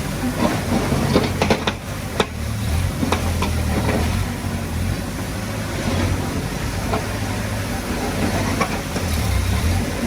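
Diesel engine of a working bulldozer running steadily, with scattered clanks and knocks over the drone.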